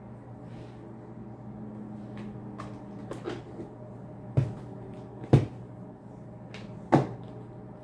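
Several sharp knocks and clicks: small ones about three seconds in, then three louder knocks roughly a second apart in the second half, over a steady low hum.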